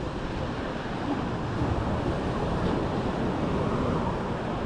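Mediterranean surf washing on a beach, a steady rushing with wind buffeting the microphone.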